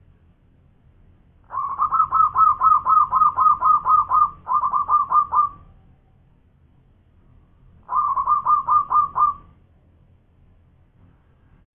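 Zebra dove (perkutut) singing its cooing song: a quick run of short repeated coos, about four a second, starting about a second and a half in and lasting some four seconds with a brief break, then a second, shorter run near the end.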